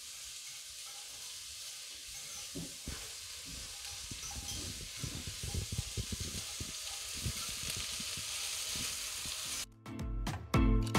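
Sliced onions sizzling in melted butter in a pot over a moderate gas flame, the start of caramelising them, with soft irregular knocks and rustles as they are stirred. It cuts off suddenly near the end and loud music with a steady beat comes in.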